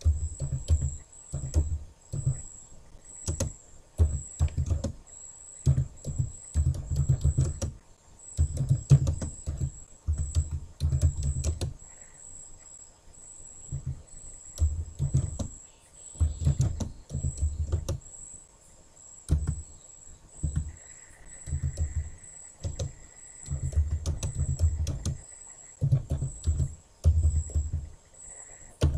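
Typing on a computer keyboard: runs of rapid keystrokes in bursts of a second or two, separated by short pauses.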